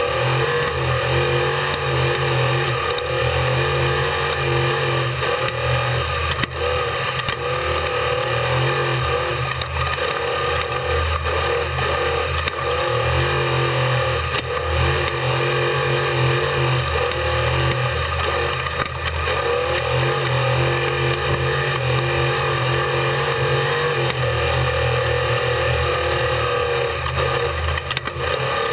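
Unlimited-class desert race truck's engine running hard at race speed, heard from on board, its revs rising and falling, with a few sharp knocks through the truck.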